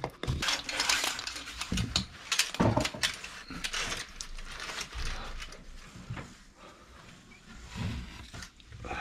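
Scraping, rubbing and knocks of a plastic washing-machine drain hose being handled and pushed into a drain pipe, busiest in the first few seconds and quieter after that.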